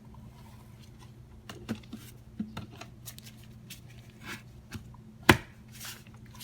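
Light plastic clicks and taps from handling a Milwaukee M12 cordless ratchet and its battery pack, with one loud sharp click about five seconds in.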